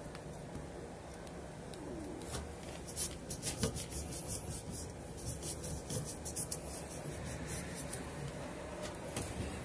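Fingers handling the drone's motor wires and heat-shrink tubing at the ESC: a run of small sharp clicks and rubbing sounds, thickest from about two and a half to seven seconds in.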